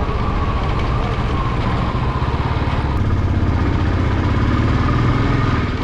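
Motor vehicle engine running steadily with a fast low throb, heard from on board while travelling.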